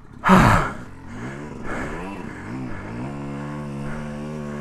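A dirt bike's motor rising and falling in pitch, then holding a steady note, after a short loud breathy exhale about a third of a second in.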